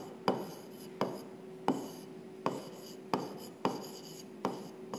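Pen tapping and scraping on the glass face of an interactive display panel as a word is handwritten, giving about eight sharp taps spaced roughly half a second apart, over a faint steady hum.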